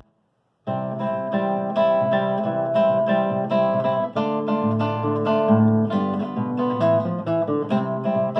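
Acoustic guitar strumming chords in a steady rhythm, starting about a second in: the instrumental intro to a festa junina song.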